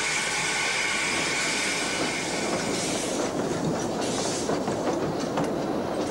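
Metre-gauge steam train departing: a steady hiss of steam for the first two or three seconds, then coaches rolling past close by, their wheels clicking over the rail joints.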